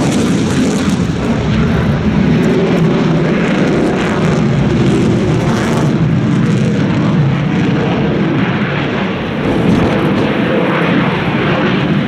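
Jet engine noise from a J-10 fighter in flight: a loud, steady rushing noise that eases slightly about three-quarters of the way through.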